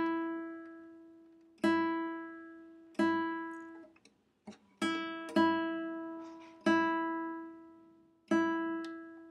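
A guitar's high E string plucked six times while it is being tuned, each note on the same pitch ringing out and fading before the next.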